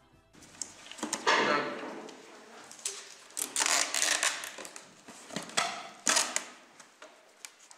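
Clear packing tape being pulled off a hand-held roll in several rasping rips and pressed down onto a cardboard box to seal it.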